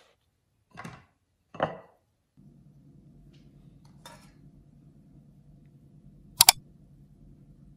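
Kitchen handling sounds while hotteok dough is worked over stainless steel trays: two short soft noises as dough balls are lifted off the trays, then a steady low hum from about two and a half seconds in. About six and a half seconds in comes a sharp double clink of kitchenware, the loudest sound.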